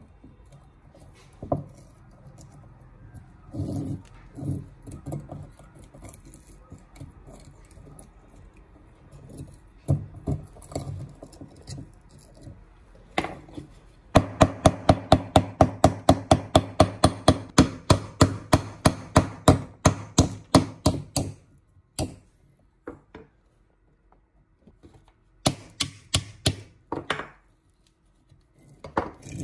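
Hand-tool work at a workbench: scattered knocks and rubbing, then a fast, even run of sharp strikes, about five a second, lasting some seven seconds. A few more clicks and knocks follow near the end.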